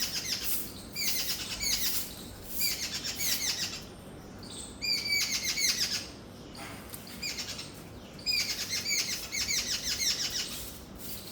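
Babbler giving rapid, harsh chattering calls in bursts of about a second, repeated several times with short pauses between. The uploader takes it for a mother babbler calling for a chick that has gone missing from the nest.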